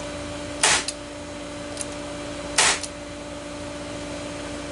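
Electric brad nailer firing twice, about two seconds apart, each shot a sharp bang with a quick click right after, driving brads into wood. A steady hum runs underneath.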